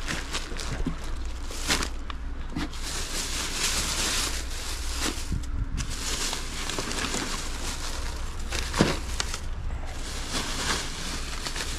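Wind rumbling on a body-worn camera's microphone, with rustling and a few knocks; the sharpest knock comes nearly nine seconds in.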